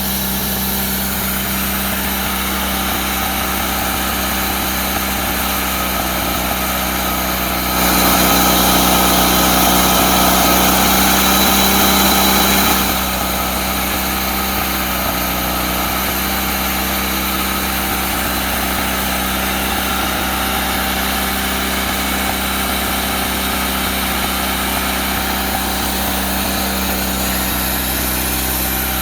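Engine of a Woodmizer LT40 sawmill running steadily on its first run after restoration. About eight seconds in, the sound grows louder and brighter for about five seconds, then settles back to the same steady running.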